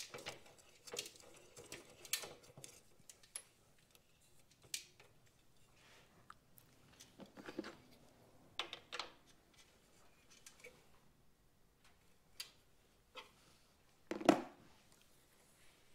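Scattered small clicks and taps of hands fitting a motorcycle turn-signal lamp onto its stalk, with a louder knock near the end.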